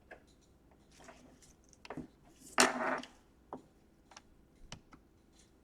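Handling of a laptop and its charger plug: scattered light clicks and knocks as the plug goes into the repaired DC power jack, with one louder scraping rustle about two and a half seconds in.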